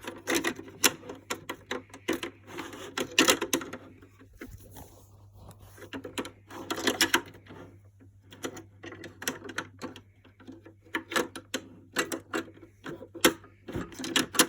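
Hard plastic clicking, knocking and rattling as a cracked toy washing machine's loose front panel and parts are handled, coming in irregular clusters with a quieter stretch about five seconds in. A faint steady low hum runs underneath.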